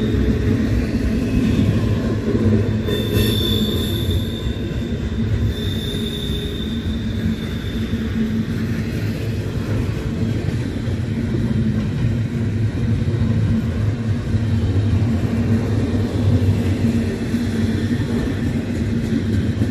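Freight train cars (double-stack container well cars) rolling past on steel rails, a steady heavy rumble of wheels on track. A high, thin wheel squeal sounds from about three to eight seconds in.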